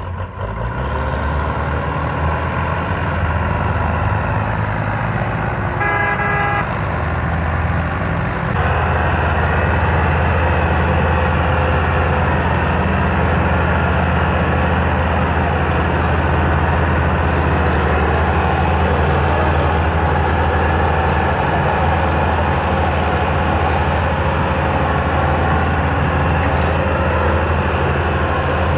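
Tractor diesel engines, a Belarus 510 hauling a heavy sugarcane trailer among them, running steadily under load; the engine sound grows louder about eight and a half seconds in. A vehicle horn toots once, briefly, about six seconds in.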